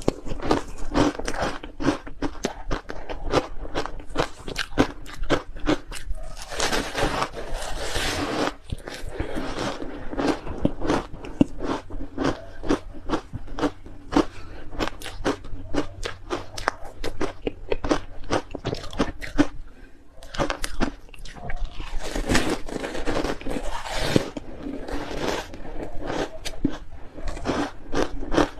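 Ice being bitten and crunched between the teeth: a rapid, uneven run of sharp crunches, with two longer stretches of grinding crunch, one about a quarter of the way in and one about three quarters in.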